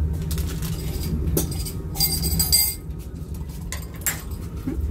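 Glass of hot water in a metal tea-glass holder clinking as it is carried, a few sharp clinks with a cluster about two seconds in, over the steady low rumble of the moving train carriage.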